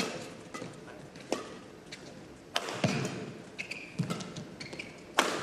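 Badminton rackets striking the shuttlecock in a doubles rally: sharp hits about once a second. Short squeaks of shoes on the court come in between.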